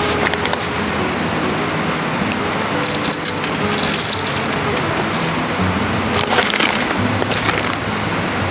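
Background music with a slow run of changing notes. Brief noisy handling sounds come about three seconds in and again near six and a half seconds.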